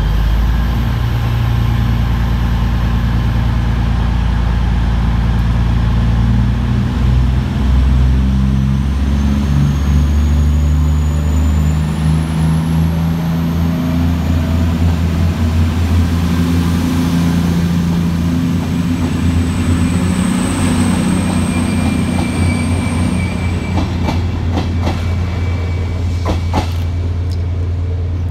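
Class 221 Super Voyager diesel-electric train pulling away from the platform, its underfloor diesel engines running under power with a steady low drone, and a faint high whine rising in pitch as it gathers speed. A few sharp clicks near the end.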